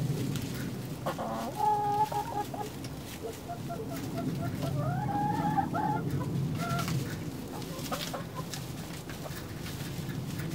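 Backyard hens clucking, with drawn-out calls about two seconds in and again around five seconds in, one of them rising in pitch, then a few short clucks.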